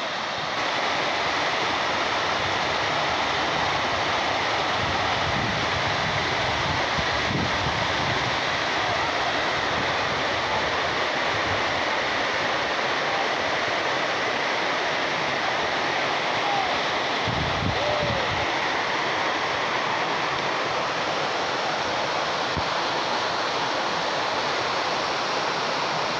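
Waterfall rushing steadily, an even wash of falling water with a couple of brief low rumbles about six and seventeen seconds in.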